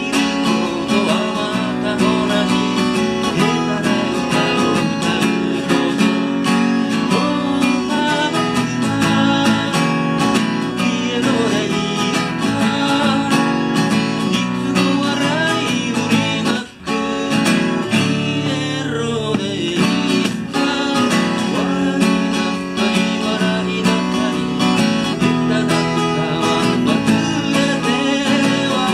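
Acoustic guitar strummed in a steady rhythm with a man singing along, the playing breaking off for a moment about seventeen seconds in.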